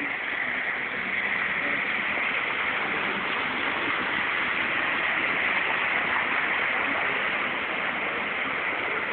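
Steady hiss of rain and wet-road traffic on a freeway, building a little over the first second and then holding even.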